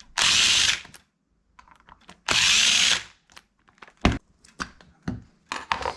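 A handheld power drill or driver run in two short bursts of under a second each, with light clicks and knocks of small parts and tools between and after them.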